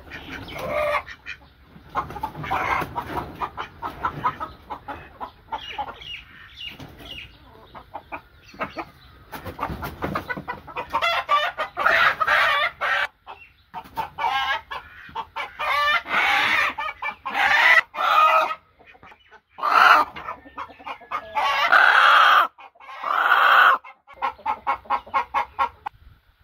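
Domestic chickens clucking in a coop, then from about halfway a run of loud, repeated squawks from a rooster being caught and held: its alarm calls at being handled.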